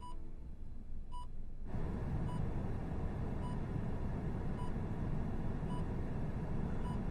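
Bedside patient monitor beeping steadily, a short high beep about once a second in time with the heartbeat. About two seconds in, a steady rushing background noise comes in beneath the beeps.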